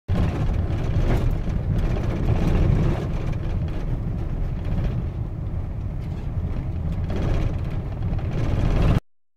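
Steady low rumble of a vehicle driving along a rough dirt road, heard from on board, cutting off suddenly near the end.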